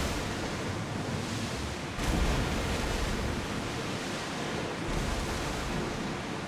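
Steady rush of sea waves with wind, swelling in two low gusts about two seconds in and again near five seconds.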